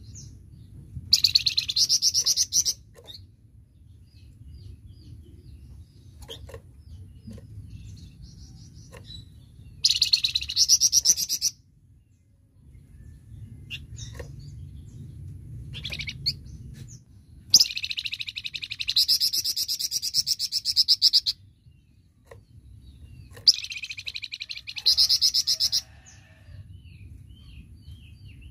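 Songbird known to Indonesian bird-keepers as the flamboyan, singing in its rapid 'tembakan' style: four loud bursts of fast, high repeated notes, each lasting from a second and a half to nearly four seconds, with soft chirps between them. A low, steady hum runs underneath.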